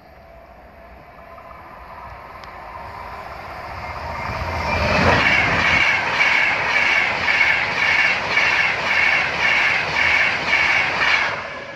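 Electric passenger train approaching and then passing fast over a level crossing. It grows louder for about five seconds, then its wheels clatter over the crossing in a regular beat of roughly two a second, and the sound cuts off sharply as the last coach clears, near the end.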